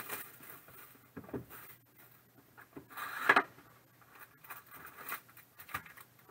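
A cardboard trading-card hobby box (2021 Panini Prizm football) being torn open by hand: scattered rustling and scraping of cardboard and wrap, with one louder rip about three seconds in. Near the end, foil card packs are lifted out and set down.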